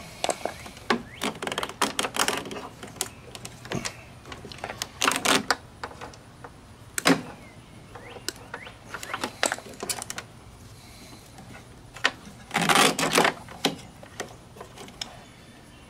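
Scattered clicks, taps and rattles of a mower's wiring and plastic motor housing being handled as a wire and its plastic connector are pulled loose, with a longer scraping rustle near the end.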